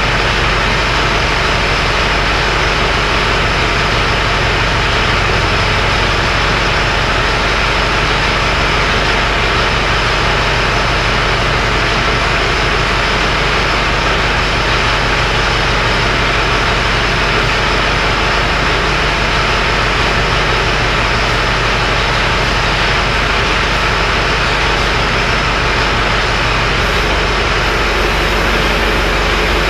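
Farm tractor engine running steadily at idle, a constant even mechanical drone with a low hum.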